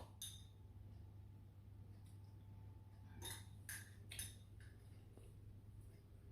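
Near silence: a faint steady room hum, with three soft clinks of tableware a little past the middle.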